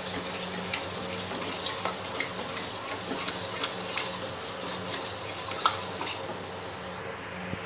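Wooden spatula stirring and scraping sugar and water around a black kadai on the stove, with many small scrapes and taps over a light steady sizzle as the sugar heats into syrup.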